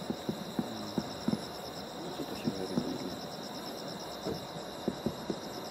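Distant fireworks going off in short dull booms at irregular intervals, several in quick succession near the end, over a steady, finely pulsing trill of night insects.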